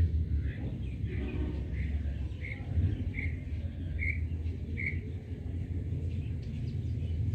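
A quail giving a string of short, high chirps, a little more than one a second, which stop about five seconds in. A steady low rumble runs underneath.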